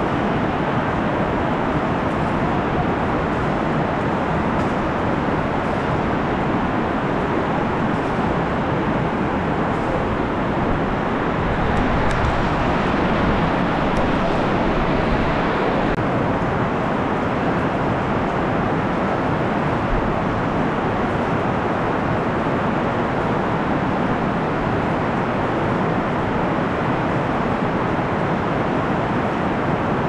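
Heavy rain falling steadily.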